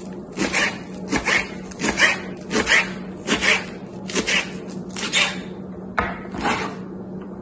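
Kitchen knife slicing spinach leaves into thin strips on a cutting board: a steady run of short cutting strokes about twice a second, breaking off about five seconds in before two more cuts.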